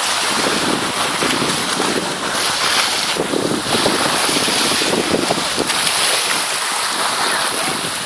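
Small sea waves lapping and washing up onto a fine-pebble beach, the surge swelling and easing every second or two, with wind rumbling on the microphone.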